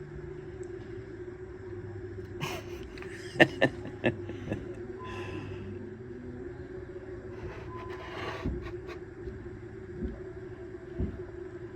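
A steady low hum throughout, with a quick run of sharp clicks and knocks a few seconds in and a few single dull thuds later on.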